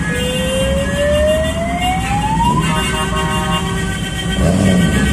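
Emergency-vehicle siren rising in one slow wail for about two and a half seconds, over steady horn tones and the rumble of traffic in a passing vehicle convoy.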